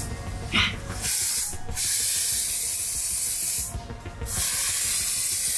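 Aerosol can of spray chalk hissing in long sprays with two short breaks. A brief sharp sound comes just before the first spray, about half a second in.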